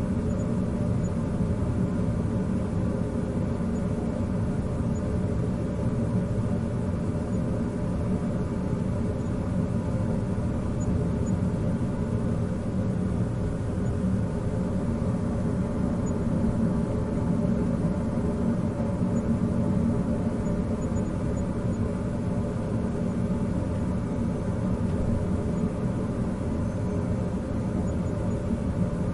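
Air vent blowing steadily: a constant low rushing rumble with faint steady hum tones, unchanging throughout.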